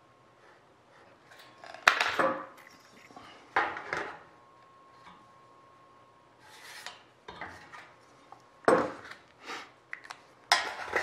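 Hand tools handled on a sheet-aluminum flap spar: a steel combination square and rule set down and slid across the metal, with a marker scraping along them. The result is a series of sharp clinks and scrapes, about half a dozen, the first about two seconds in.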